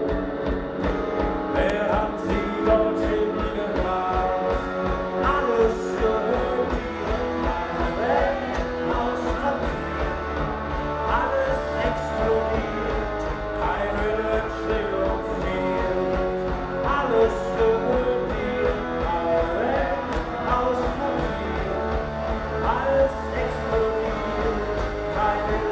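Live rock band playing: electric guitars and drums over a steady beat, with a male lead singer singing into the microphone.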